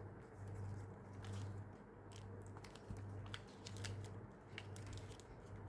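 Faint rustling and scattered light clicks of sticker sheets being handled and sorted, over a low steady hum.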